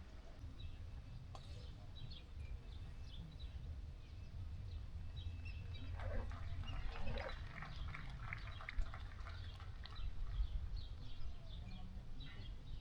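Outdoor ambience: small birds chirping over a low steady rumble, with a denser, louder patch of short crackly sounds around the middle.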